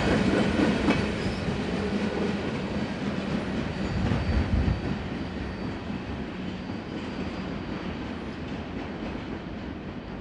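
The last empty coal hopper cars of a Union Pacific freight train rolling past on steel wheels and rails, the sound fading steadily as the train pulls away.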